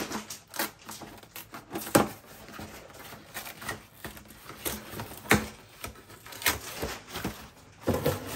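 Foil-wrapped ice cream cones and their cardboard box being handled into a plastic freezer drawer among ice cream tubs: irregular knocks and taps, a few of them sharper, around two, five and six and a half seconds in.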